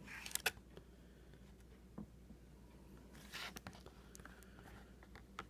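Capri Sun foil pouch and its straw being handled over a glass: a few sharp clicks near the start, a short crinkle about three and a half seconds in, and another click near the end.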